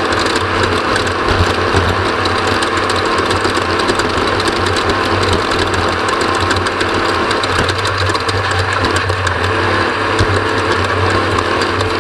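Off-road race vehicle's engine running steadily at speed, heard onboard, with a dense clatter of rattles from the vehicle.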